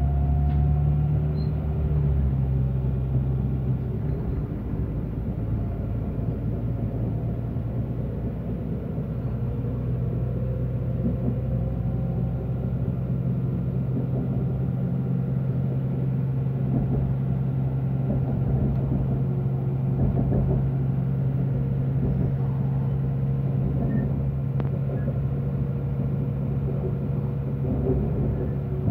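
Diesel engine of an ÖBB class 5022 diesel multiple unit running under load, heard inside the passenger cabin as the railcar pulls away and gathers speed, with rumbling wheel and running noise. The engine's steady drone shifts down in pitch a few seconds in and then holds, while fainter higher tones slowly rise.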